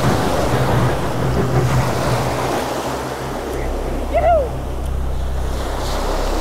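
Surf washing onto the beach with wind rumbling on the microphone, and one brief shout about four seconds in.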